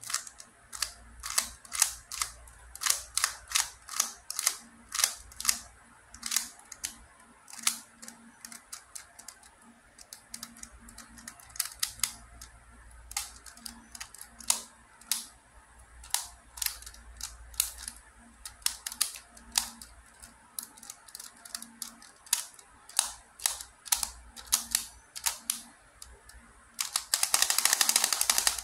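QiYi MoFangGe Master Pyraminx, a four-layer pyramid twisty puzzle, being turned by hand as it is scrambled: sharp plastic clicks and snaps as its layers and tips rotate, irregular, a few a second. Near the end they run together into a dense rattle of rapid turns.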